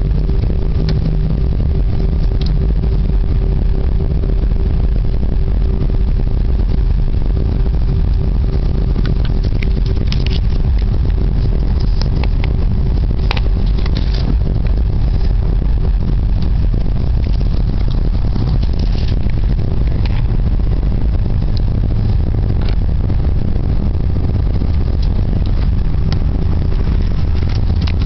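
Airbus A320 cabin noise on the ground: a loud, steady low rumble from the engines, with a thin steady whine that fades about halfway through. A few sharp clicks come near the middle.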